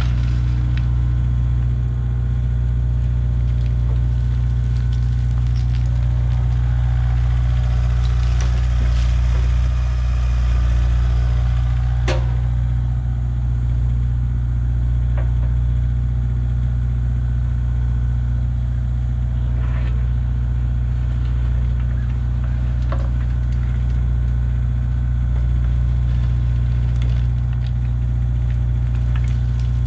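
Excavator engine running steadily, with a sharp knock about twelve seconds in and a few fainter clicks.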